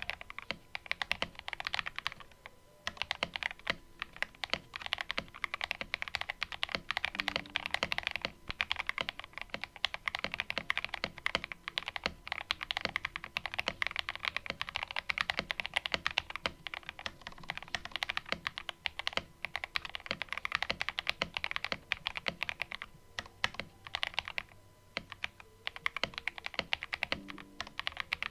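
Steady typing on a CIY Tester68 mechanical keyboard with foam and tape mods, fitted with stock, unlubed KTT Mint linear switches: a fast run of key clacks with a few short pauses.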